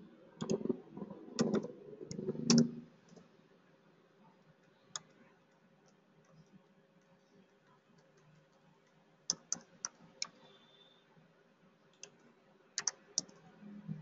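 Computer mouse and keyboard clicks during text editing: a cluster of clicks and soft thumps in the first three seconds, then scattered single clicks, a quick run of about four clicks some nine to ten seconds in, and a few more near the end.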